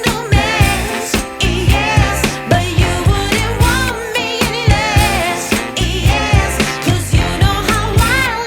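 Background music: a pop song with singing over a steady drum beat.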